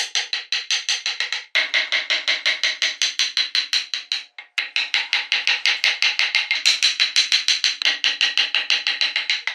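Rapid, even tapping of a small chisel working into wood: sharp ticks about six or seven a second, each with a short ringing tone, broken off briefly about four seconds in.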